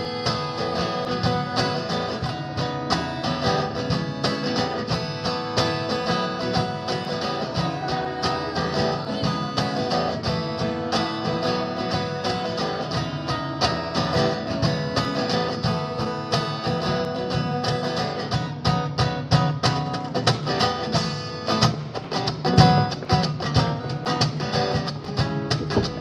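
Live acoustic guitar strumming with percussion hits, an instrumental passage with no singing.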